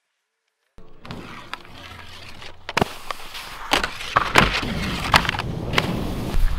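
Near silence for under a second, then skis scraping over snow and sliding along a metal-edged box rail, with several sharp knocks and clatters as the skis hit and leave the box. The sound grows louder toward the end.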